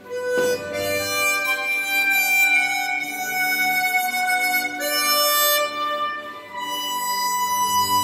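Swan SW1248 chromatic harmonica, airtightened by sanding its comb and mouthpiece flat, played as a slow melodic phrase of held notes that change pitch every second or so. There is a brief break about six seconds in, then a long held note.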